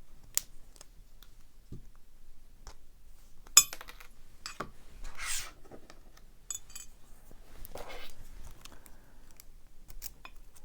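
Small metallic clicks and scrapes of tools working the C-clip off the back of a Kwikset lock cylinder, with one sharp metal click about three and a half seconds in.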